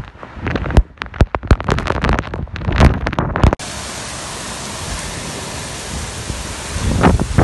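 Rain, hail and strong wind in a thunderstorm. For about three and a half seconds there are irregular sharp taps and low thumps of wind striking the microphone. Then the sound changes suddenly to a steady hiss of heavy rain, with a louder gust of wind near the end.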